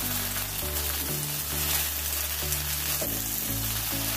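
Mini idlis and curry leaves sizzling in hot ghee in a nonstick pan as they are tossed with a spatula, over background music with slow, held low notes.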